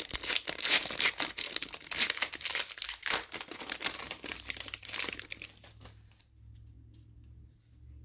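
Foil wrapper of a trading-card pack being torn open and crinkled, a dense crackling that stops about five and a half seconds in, leaving only a faint low hum.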